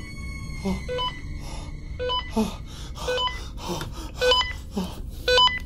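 Heavy, frightened breathing with gasps, over a short electronic ping that repeats about once a second.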